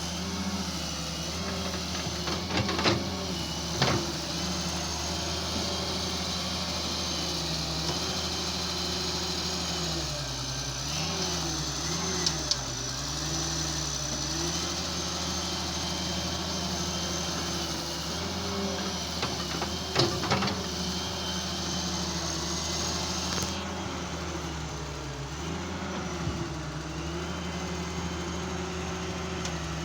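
Excavator diesel engine running, its pitch dipping several times as it takes load, with a few sharp clanks. A faint high whine cuts off suddenly about three-quarters of the way in.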